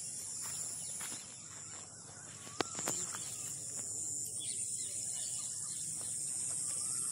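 Steady high-pitched chirring of insects in the grass, with one sharp click about two and a half seconds in.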